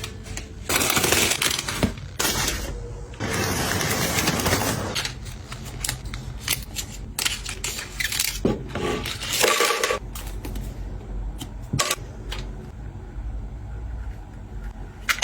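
Hard plastic and glass containers and their packaging handled and set down: bursts of rustling, with many sharp clicks and knocks, and a short ringing clink a little past the middle.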